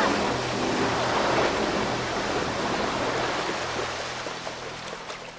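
Sea water and surf washing in a film soundtrack, with a low steady hum underneath that dies away, the whole sound slowly fading.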